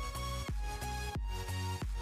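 Background electronic music with a steady beat, a deep beat about every two-thirds of a second under held notes.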